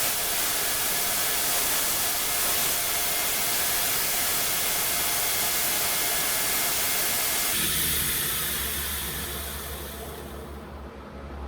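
A workshop power tool running with a steady rushing whir. About seven seconds in it shuts off and winds down over a few seconds.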